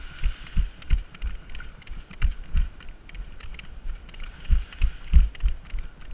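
Footsteps of a player on the move, heard as a run of low, dull thumps about two to three a second that jolt a body-worn camera, with light sharp clicks scattered among them.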